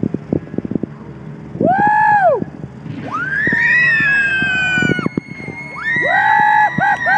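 Young girls screaming and cheering in high-pitched voices: a short whoop about two seconds in, a long falling cry around four seconds, and a string of quick yells near the end, after a few soft knocks at the start.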